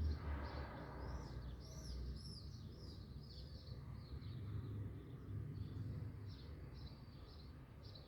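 A small bird chirping: a steady run of short, high notes, a few each second, over a low hum. A brief rustling noise in the first second.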